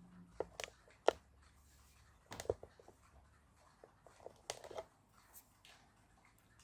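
Sharp clicks and knocks of hard parts being handled, a 3D-printed plastic quick release plate on a tripod head, coming in three short clusters.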